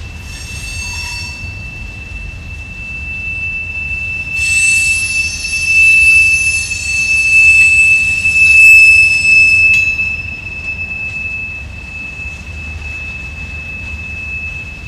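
Freight cars rolling past, wheels squealing on the rails in one steady high-pitched tone over a low rumble. A louder, shriller squeal joins about four seconds in and stops about ten seconds in.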